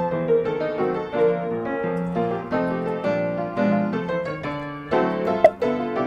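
Background piano music, a melody of separate notes played one after another, with a short sharp click near the end.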